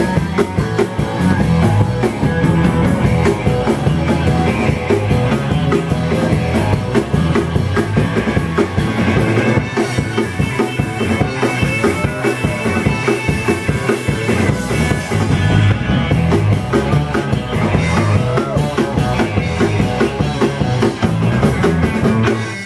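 Live psychobilly rock-and-roll band playing loudly: electric guitar, bass guitar and a drum kit.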